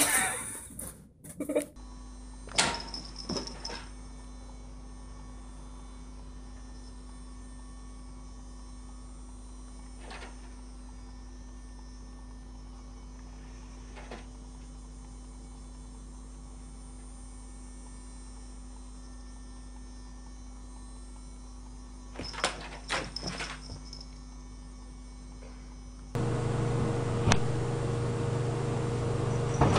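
Steady low electrical hum, with a few faint knocks and taps scattered through it. About 26 seconds in, a louder, deeper hum takes over.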